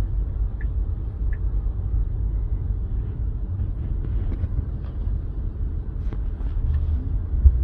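Steady low rumble of road and wind noise inside a moving car's cabin, with a brief thump near the end.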